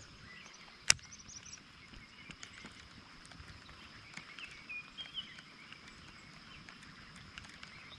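Quiet outdoor lakeside ambience: a sharp click about a second in, scattered light ticks, a faint steady high-pitched whine, and a few short, faint bird chirps in the middle.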